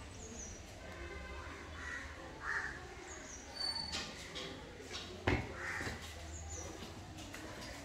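Crow cawing several times in short, rough calls, with a sharp knock about five seconds in.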